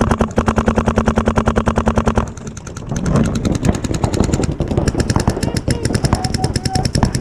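Paintball marker firing rapid strings of shots, about a dozen a second, with a steady low hum under the first string. After a short lull about two seconds in, the firing resumes, denser and less even.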